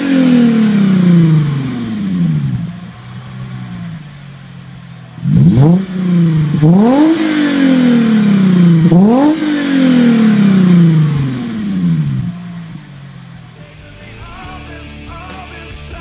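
A Lexus GS350's 3.5-litre V6 through a PTS-JoeZ cat-back true dual exhaust, revved with the car standing still. The revs are falling back to idle at the start, then there are three quick throttle blips in the middle, each sliding slowly back down to idle. Rock music comes in near the end.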